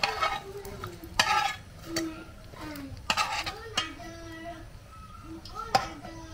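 Metal slotted spatula clinking and scraping in a metal frying pan as fried plantain snacks are lifted out of hot oil, with short bursts of sizzling.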